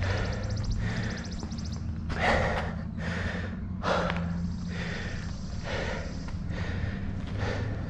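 A runner's hard breathing, a heavy exhale roughly every second.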